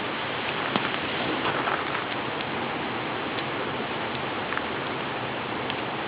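Steady rush of falling water at a waterfall, with a few faint clicks scattered through it.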